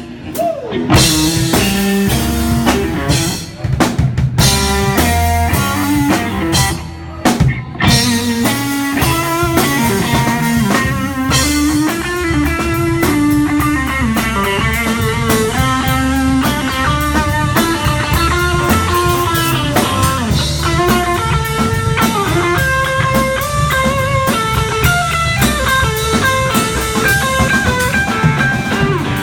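Rock band playing an instrumental passage on guitar and drum kit, with two short breaks a few seconds in before the playing fills out into a busy run of guitar notes.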